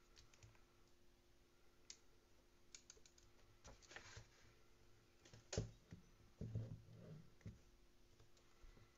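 Near silence with faint, irregular clicks and taps of a person handling a phone. The sharpest click comes about five and a half seconds in, and a few soft, low thumps follow just after.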